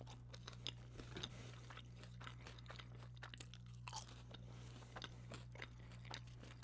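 Close-miked mouth chewing of food: faint wet clicks and small crunches scattered all through, over a low steady hum.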